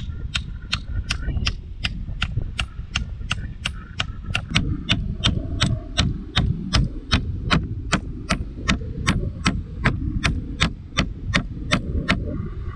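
Claw hammer driving a nail into the joint where a wooden crossbar meets an upright pole, with steady sharp blows at about three a second. A steady low rumble of wind on the microphone runs underneath.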